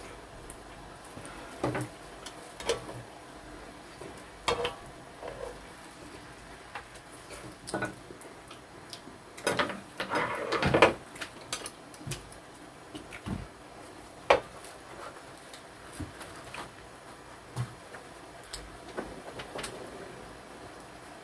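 Tableware at a meal of grilled LA galbi: scattered clicks and clinks of chopsticks, tongs and dishes, with a louder run of clatter about ten seconds in.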